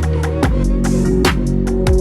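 Background electronic dance music with heavy bass, drum hits and sweeping bass drops.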